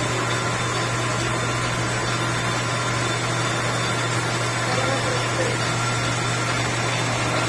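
Machine-shop machinery running: a steady low hum with an even mechanical noise over it.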